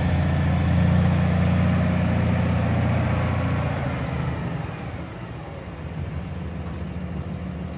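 Diesel engine of a tandem-axle semi truck tractor running steadily as the truck drives slowly. The low engine note fades from about four seconds in as the truck moves off.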